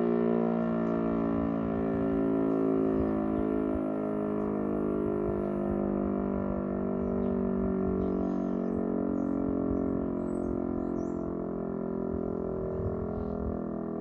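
Siemens-Schuckert E57 electric civil-defence siren sounding its dissonant chord at full speed, held at a steady pitch with a slow beating in the tone; an unbroken steady tone like this is the all-clear signal. Birds chirp faintly about halfway through.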